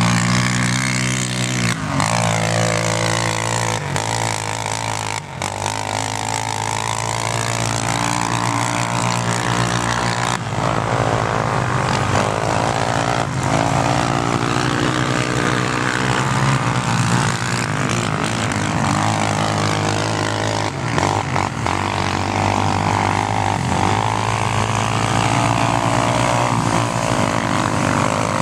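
Quad ATV engines running and revving as they climb a sand dune, the pitch sweeping up and down repeatedly.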